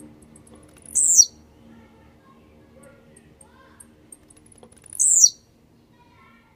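Male blue-black grassquit (tiziu) singing its short song twice, about four seconds apart, each a brief high note sliding down in pitch.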